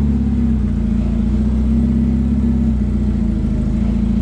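Forklift engine running steadily under load while its mast hydraulics lift an engine out of a truck, the engine's pitch shifting slightly a few times as the operator works the controls.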